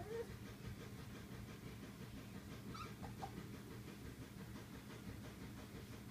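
Polish Lowland Sheepdog (PON) puppies, about four weeks old, whimpering: a short rising whine at the start and a faint high squeak about three seconds in, over low steady background noise.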